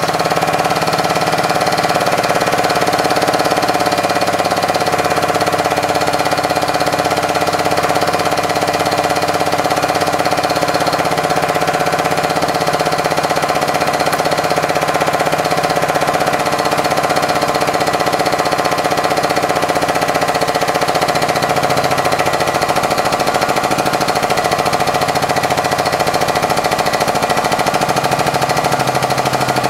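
Hydraulic press pump running steadily under load with a fast, buzzing hum as the ram presses down on a small model airplane engine; the pitch of its lower hum shifts about two-thirds of the way through.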